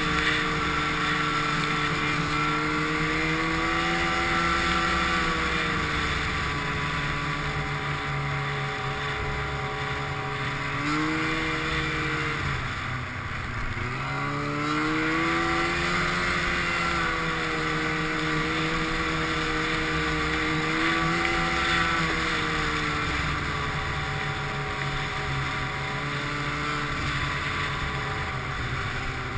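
Snowmobile engine running at varying throttle, its pitch rising and falling in waves; it drops away sharply about thirteen seconds in, then climbs again.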